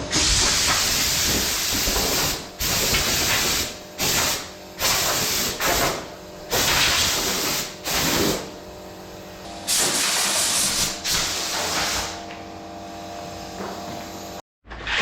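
Compressed-air blowgun on an airline blowing dust off a ground concrete floor, in repeated hissing blasts of half a second to two seconds each, with a low steady hum underneath.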